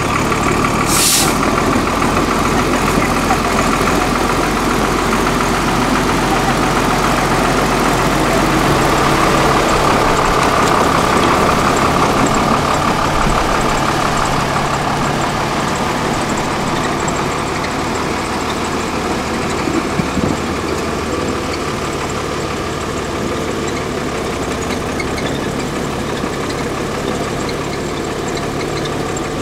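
Engine of a 6x6 Praga trial truck running steadily under load at low speed as the truck crawls through deep ruts, with a short hiss about a second in.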